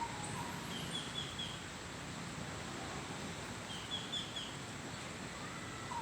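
A bird repeating a short call of three or four quick chirps, twice, about a second in and again about four seconds in, over steady outdoor background noise.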